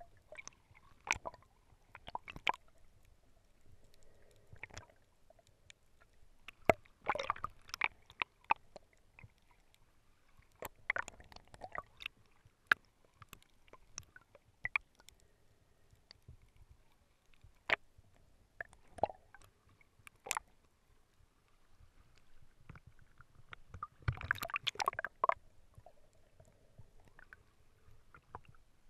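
Underwater sound picked up by a GoPro in its waterproof housing: irregular clicks and knocks with muffled water sloshing, busier in a few short clusters.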